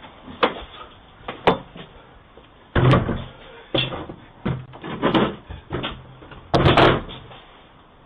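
A door being banged on by hand: two sharp knocks, then a run of about six heavier bangs, the last the loudest.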